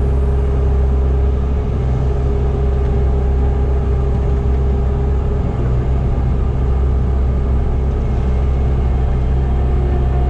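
Bobcat T650 compact track loader's diesel engine running steadily, heard from inside the cab, with a steady whine that fades out about halfway through.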